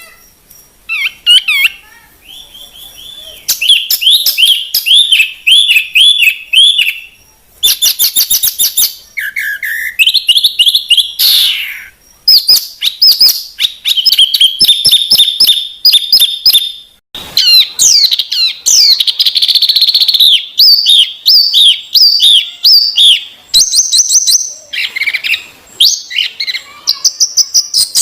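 A bird singing a long, varied run of rapid high chirps and trills, broken by brief pauses between phrases.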